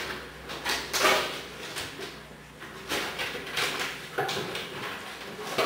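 Cardboard coupon box being handled and pulled apart by hand: scraping and rustling of cardboard in several short bouts.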